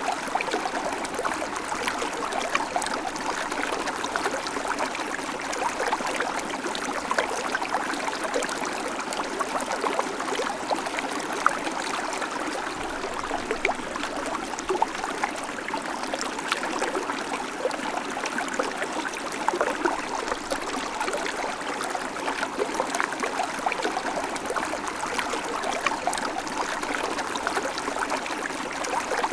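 Babbling creek: shallow water running and trickling over stones, a steady rush with many small splashes and gurgles.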